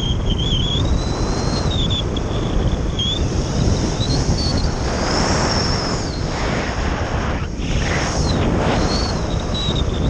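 Strong wind rushing over the camera on a Phase 6 radio-controlled glider in flight, a steady low buffeting roar. A thin high whistle wavers up and down in pitch and rises highest about five seconds in, as the glider banks.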